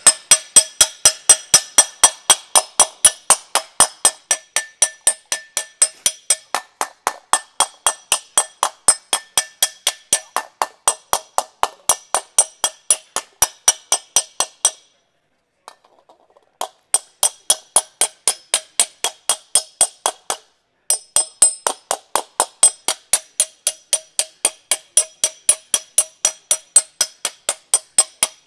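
A panel beater's slapper (flipper), a flat-faced slapping tool, striking sheet aluminium over a post stake in quick, even blows, about three a second, each with a short metallic ring. The slapping blends the panel's high and low spots together. The blows stop for about a second and a half around midway, then resume.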